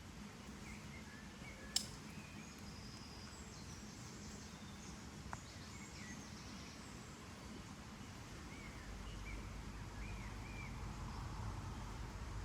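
Quiet outdoor ambience with faint, scattered bird chirps. A sharp click about two seconds in is the loudest sound, with a softer click around the middle. A low rumble swells in the last few seconds.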